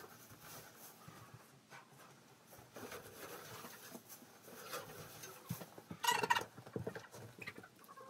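Dry straw bedding rustling and crackling as it is gathered up by hand, in short scratchy bursts, with a louder flurry of rustling about six seconds in.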